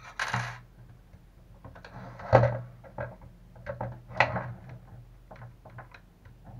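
Handling noises from working on a Traxxas Revo 3.3 RC truck chassis and small hand tools: irregular clicks, knocks and rattles, with a short scrape just after the start and the loudest knocks about two and a quarter and four seconds in.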